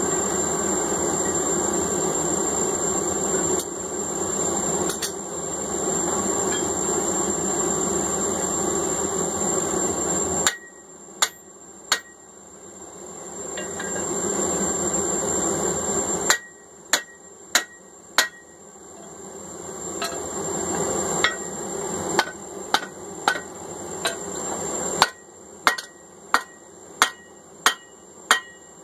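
Hand hammer striking hot steel on an anvil as the forged eye punch is cleaned up, each blow with a short ring. The blows start about ten seconds in, three at first, then a steady run of about two a second near the end. Before them, a steady roar fills the first ten seconds.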